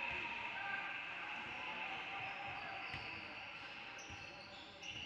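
A basketball bouncing on a gym floor a handful of times at irregular intervals, over the murmur of voices in the gym.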